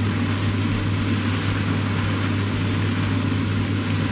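Flat rice noodles stir-frying in a wok, heard as a steady rushing noise over a constant low hum.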